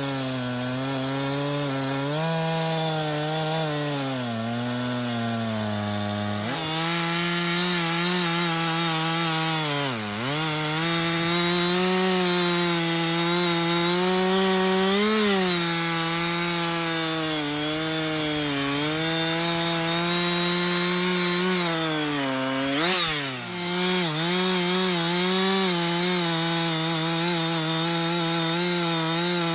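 Husqvarna chainsaw running at high revs while cutting through a downed sycamore trunk, its pitch wavering with the load. Twice, about ten seconds in and again a little after twenty seconds, the engine pitch drops sharply and then climbs back.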